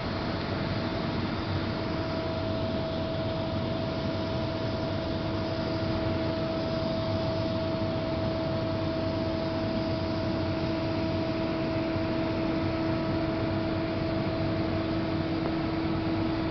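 1965 WMW DKZ 6300 vertical turning lathe running: a steady machine hum with two held tones over an even rushing noise.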